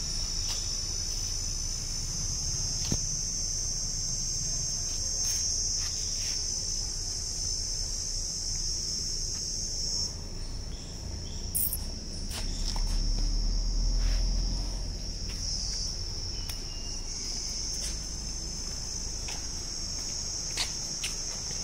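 Insects droning steadily at a high pitch, with a few faint clicks. A low rumble swells briefly about twelve seconds in.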